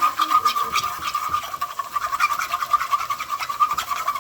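Sauce of chicken juices, ketchup and brown sugar sizzling and crackling in a hot pot as it is stirred, a steady hiss under many small pops. It cuts off abruptly at the end.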